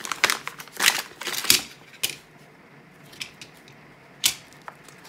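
Small plastic packet crinkling and rustling as it is handled, with sharp clicks. The crinkling is busiest in the first two seconds, then only a few single ticks follow.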